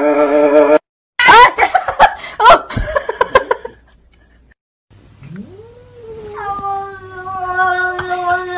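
Cats yowling: a drawn-out yowl breaks off about a second in, followed by a loud burst of sliding, rising and falling yowls. After a short lull a single long yowl rises and is held steadily through the last few seconds.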